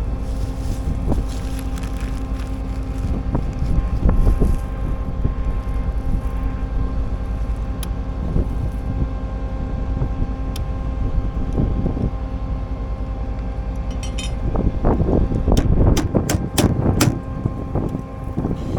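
Combine harvester running while cutting soybeans: a steady machine drone with a constant hum over a low rumble. About three-quarters of the way through comes a run of irregular knocks and rattles.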